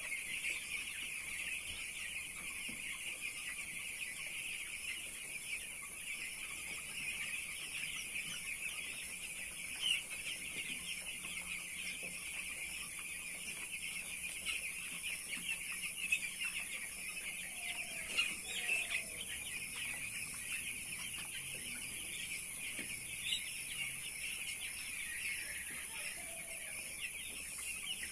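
A large flock of young chicks peeping continuously, many overlapping high chirps at once, with a steady high-pitched whine underneath.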